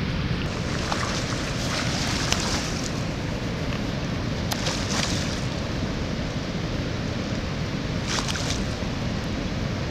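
Wind buffeting the microphone over a steady rushing of floodwater through the open gates of Lock and Dam 19 on the Mississippi, with a few brief hissing gusts.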